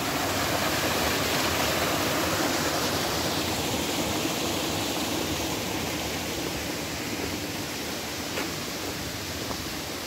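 Steady rushing of a waterfall and its rocky mountain stream, water cascading over boulders.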